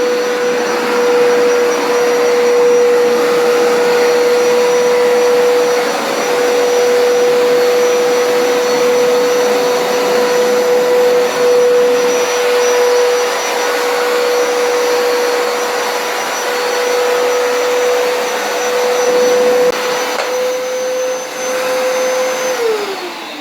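Hoover Carpet Basics Power Scrub Deluxe carpet cleaner running loud: a steady high motor whine over the rush of its suction. Near the end the motor winds down, its whine falling in pitch.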